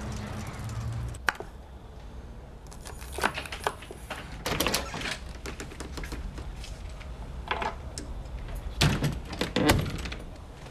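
A house door being opened and shut: a run of sharp clicks and rattles from the keys and latch, then the loudest knocks as the door is closed near the end.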